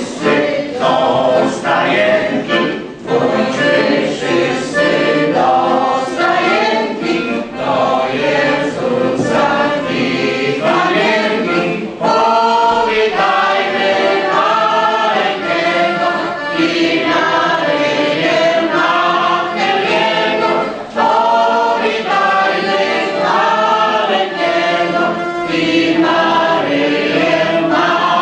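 A mixed folk choir of women and men singing a Christmas carol, with an accordion accompanying.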